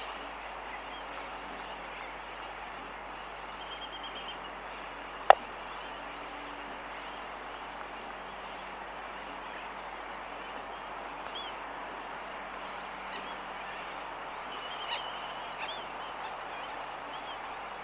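Laysan albatross colony at close range: a steady wash of distant bird noise with one sharp, loud bill click about five seconds in, and a few fainter clicks and short high chirping calls from sooty terns in the distance later on. A faint steady low hum runs underneath.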